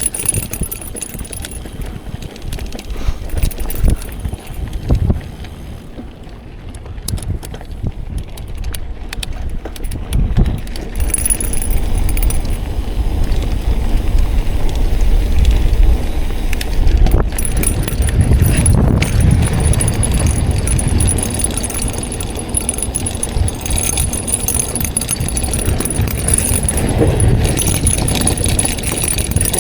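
Mountain bike rattling and clattering over a rough trail, its chain (which the rider says is a link too long) slapping and jangling, over a low gusting rumble. It gets louder from about eleven seconds in.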